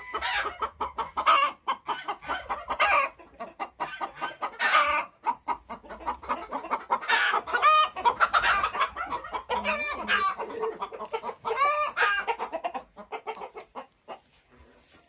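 Chickens clucking busily throughout, with several louder drawn-out calls rising above the clucking; the calls thin out near the end.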